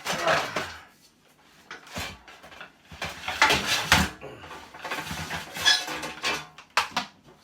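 Metal scraping and clattering on a stainless steel case in a series of rough strokes, as a part is slid and worked out of it: a grating metal-on-metal sound.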